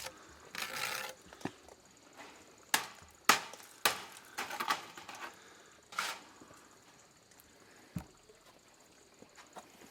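A series of sharp knocks and clatters, about six spread over several seconds, with softer scraping noises in between; the last knock comes about eight seconds in.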